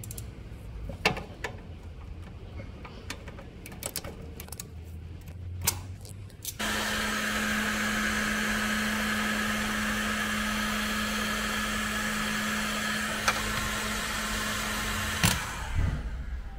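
Scattered clicks of wires and tools being handled, then an electric heat gun switched on about six and a half seconds in, blowing steadily with a low motor hum as it shrinks a heat-shrink butt splice on a crimped wire. It runs for about nine seconds and stops abruptly with a click.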